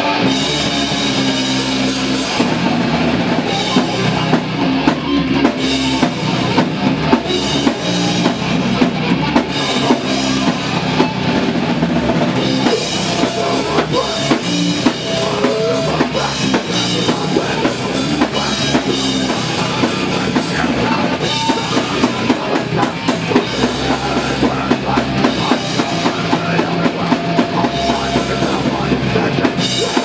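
Heavy metal band playing loud rock: electric guitars and bass over a driving drum kit with a steady bass drum.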